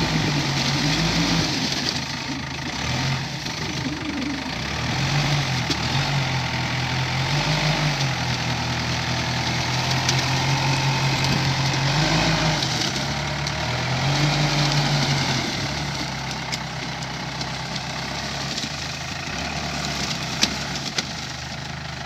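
Bobcat B900 backhoe loader's diesel engine running, its revs rising and falling several times as the machine works its way onto and along the railway track. Two sharp knocks near the end.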